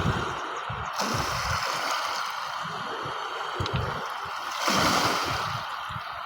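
Sea waves washing, with one louder wash about five seconds in.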